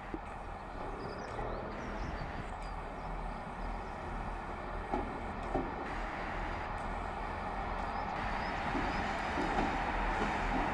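Class 165 diesel multiple unit running into the platform, its engine and wheel noise growing louder as it draws near, with a couple of brief clicks about five seconds in.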